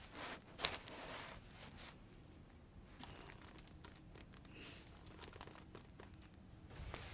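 Quiet rustling and crinkling of a patient shifting on a chiropractic table during an adjustment, with one sharp crack about half a second in and a few fainter clicks later.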